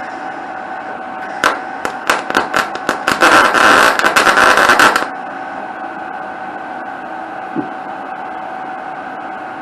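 Electric arc welder: a few sharp, sputtering crackles as the arc is struck about a second and a half in, then a steady crackling arc for about two seconds that cuts off suddenly, over the constant hum of the welding machine. The starts are hard on a poor ground connection.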